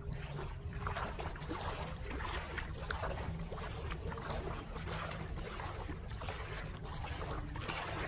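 Muddy floodwater sloshing and splashing in repeated strokes about once a second, over a steady low rumble.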